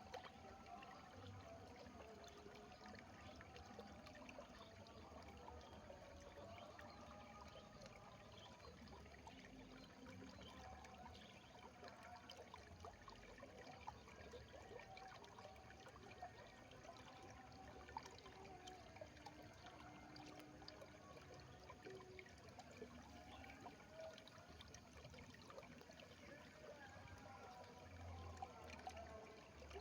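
Faint, steady trickle of irrigation water flowing in a rice field, with many small splashes and gurgles.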